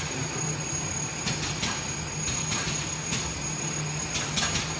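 TPU membrane laminating machine running: a steady machine hum with a thin high whine over it. A few short sharp ticks come through, several close together near the end.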